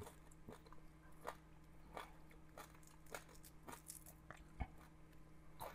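Faint, scattered crunches and small clicks of crispy fried surf perch being picked apart by hand and chewed.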